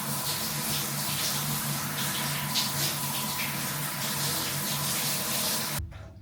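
Water running steadily from a tap or shower, with a low pulsing hum under it, then shut off suddenly near the end.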